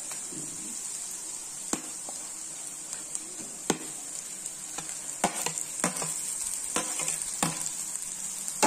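Onions and green chillies sizzling steadily in oil in a kadai, with a metal spoon clicking sharply against a plate about six times as mashed boiled potatoes are scraped off it into the pan.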